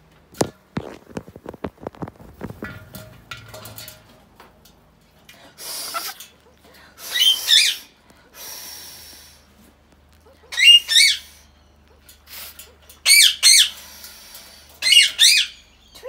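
Rainbow lorikeets giving short, shrill, squeaky chirping calls in four bursts a few seconds apart. A quick run of sharp clicks and knocks comes in the first few seconds.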